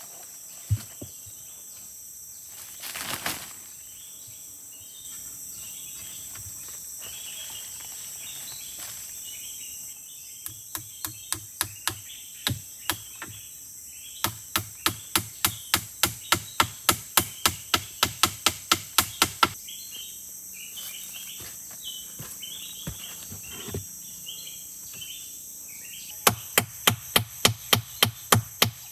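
Rapid, evenly spaced chopping blows on wood, about three a second, in two runs: a long one starting about a third of the way in, and another beginning near the end. A steady high insect drone runs underneath.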